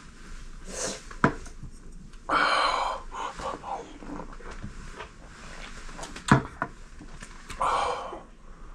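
A man drinking beer from a can, with two loud breathy exhales about two seconds in and near the end, and a few sharp clicks.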